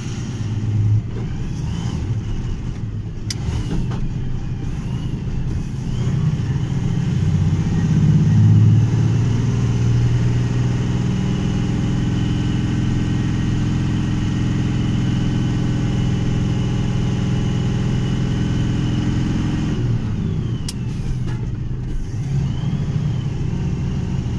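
Vehicle engine and tyre noise while driving along a paved road. The engine note holds steady for several seconds, then drops about twenty seconds in.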